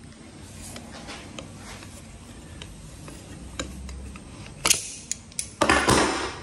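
Metal locking pliers gripping and twisting a screw out of a mold frame: scattered small clicks and ticks, a sharp click near the end, then a short harsh grating sound lasting under a second.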